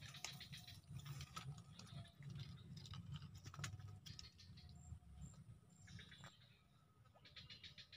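Near silence: faint scattered clicks and rustling, with a few short, evenly spaced high peeps about halfway through.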